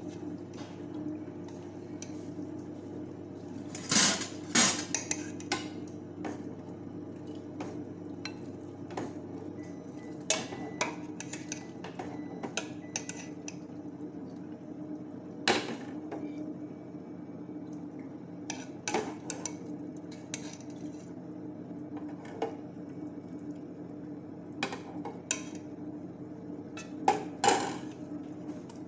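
Scattered clinks and knocks of crockery and utensils, loudest as a pair about four seconds in and again near the end, over a steady low hum.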